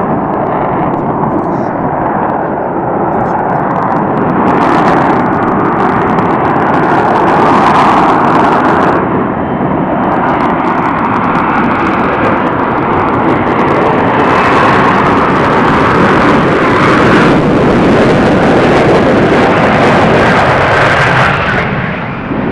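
Lockheed Martin F-35B's Pratt & Whitney F135 engine and shaft-driven lift fan running loud in short-takeoff-vertical-landing mode as the jet hovers and lets down to the runway, a heavy jet rumble with harsh crackling that comes and goes several times.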